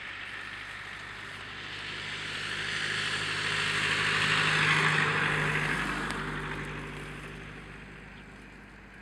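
A passing engine vehicle that grows steadily louder to a peak about halfway through and then fades away.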